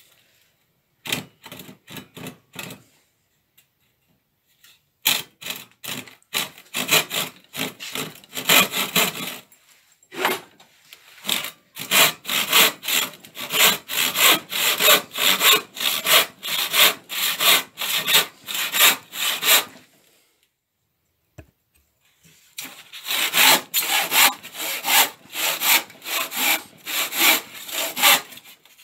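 Handsaw crosscutting a softwood board, a steady rasping stroke about twice a second. It comes in runs: a few starting strokes, then longer runs broken by three short pauses.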